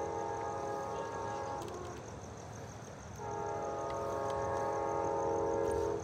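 Amtrak Auto Train's locomotive horn sounding a steady multi-tone chord as the train approaches: a long blast that ends about a second and a half in, then a second long blast starting about three seconds in. These are the opening long blasts of the standard long-long-short-long grade-crossing signal.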